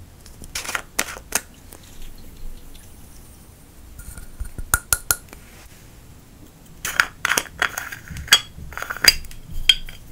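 Hard plastic cosmetic containers handled close up: sharp clicks and taps in three bunches as a loose-glitter jar and a powder blush compact are worked. The last and densest bunch comes as the compact's lid is clicked open.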